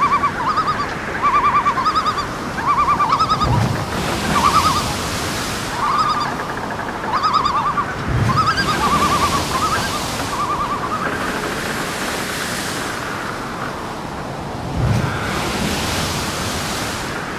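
A bird calling in short groups of quick, arched chirps, over a steady wash of water and wind noise with a few low thumps. The calls stop a little past halfway.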